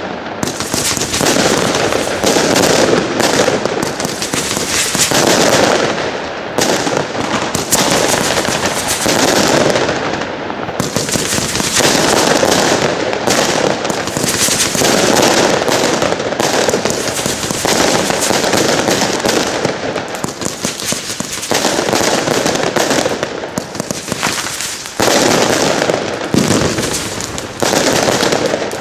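Röder Strammer Max 50-shot, 21 mm firework battery firing: a dense, unbroken barrage of launches and bursts.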